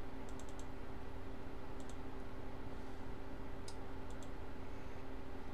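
A few faint, sharp clicks in small groups (four quick ones near the start, a pair about two seconds in, a few more near four seconds) over a steady low electrical hum.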